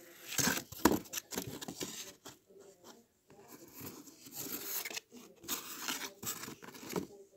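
Corrugated cardboard panels being handled and shifted against each other, with irregular scraping and rustling.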